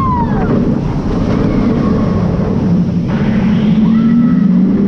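Wind rushing over a chest-mounted action camera's microphone and the rumble of the Cheetah Hunt roller coaster train running at speed along its track, heard on board as it dives through the ride's trench section.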